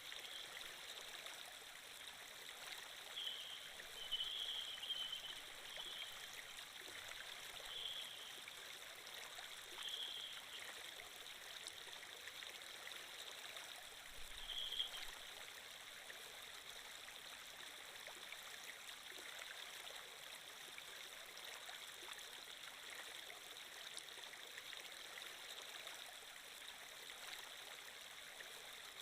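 Steady flowing water of a stream, faint and even, with a few brief louder splashy moments in the first half.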